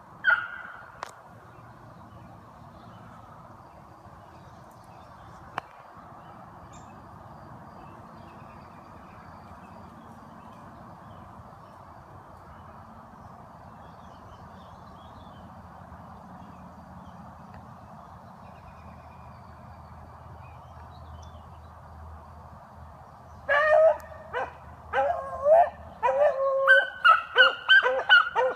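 Beagles baying: a single yelp at the start, then from about 23 seconds in a rapid, quickening run of loud bawling calls, the voice hounds give when running a scent trail. A steady hiss lies underneath throughout.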